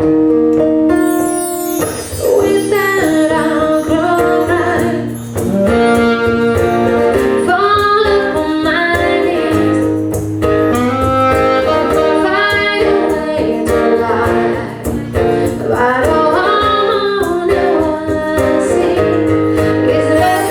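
A woman singing a pop song with guitar accompaniment.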